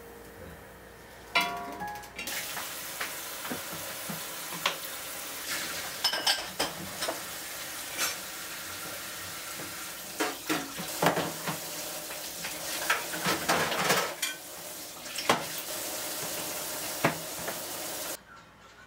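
Dishes and cutlery clinking and knocking as a table is cleared, over a steady frying-like hiss that cuts off suddenly near the end.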